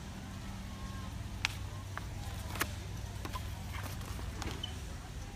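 Steady low hum of store background noise, with a few sharp clicks and taps from hanging costumes and their plastic hangers being handled.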